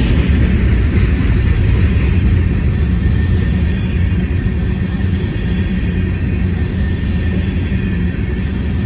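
Freight train cars rolling past close by: a loud, steady low rumble of wheels on rail that keeps on without a break.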